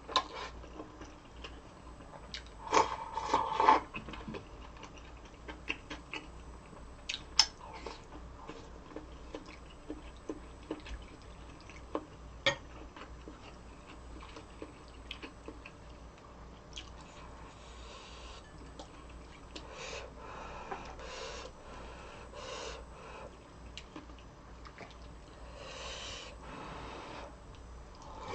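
Close-miked eating sounds: a couple of crunchy bites about three seconds in, a few single sharp clicks, then softer repeated chewing in the second half.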